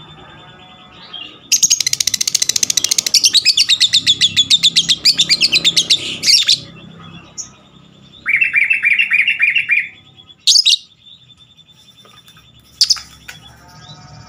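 Lovebird ngekek: a long, rapid chattering trill of sharp high notes lasting about five seconds, then a shorter, lower trill about eight seconds in, and a couple of single sharp chirps near the end.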